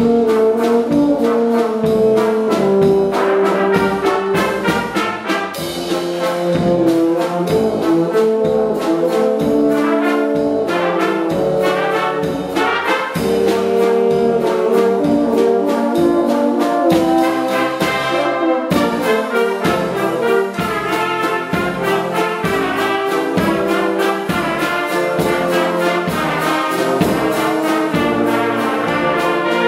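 Brass band music: trumpets and trombones playing held melody notes over a steady, even drum beat.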